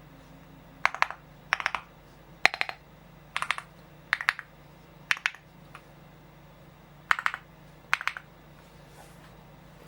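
Typing on a Feker Galaxy80 mechanical keyboard fitted with Keytok KOL Ctrl keycaps: about eight short runs of two to four keystrokes each, separated by pauses of roughly half a second to two seconds, with a longer gap in the middle.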